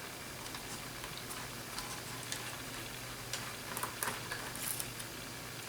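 Small Phillips screwdriver backing out the keyboard retaining screws on the underside of a laptop: faint, scattered clicks and ticks.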